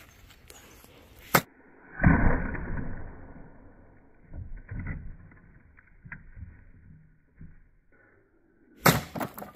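A small table thrown and crashing down onto the ground about two seconds in, a heavy crash with clattering that dies away over about a second, after a sharp knock just before it. A few more sharp knocks follow near the end.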